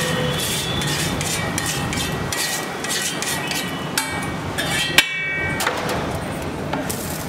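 Metal spatula scraping and tapping across a flat cooking griddle in a run of short strokes. About five seconds in there is one sharp metallic clank that rings briefly.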